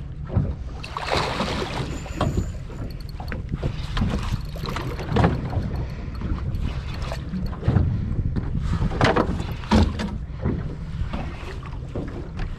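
Wind buffeting the microphone and water sloshing against a small boat's hull, with scattered knocks and splashes as a hooked fish is netted alongside.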